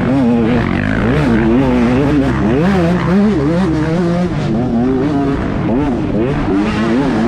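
125cc racing dirt bike engines revving hard, their pitch rising and falling over and over as the throttle is opened and closed.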